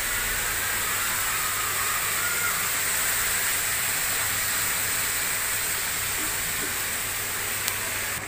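Potato pieces frying in oil in an aluminium kadai: a steady sizzling hiss.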